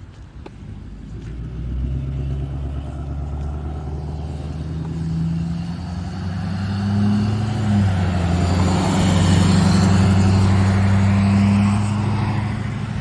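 A pickup truck driving past on the road, its engine note building as it approaches, stepping up in pitch about seven seconds in as it accelerates, loudest around nine to eleven seconds in, then easing off as it pulls away.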